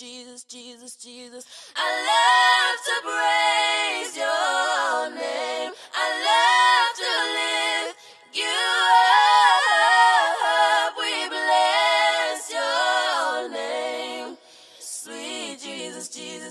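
A cappella singing: voices carrying a melody with sliding, bending notes and no instruments, quiet at first and much louder from about two seconds in, then softer again near the end.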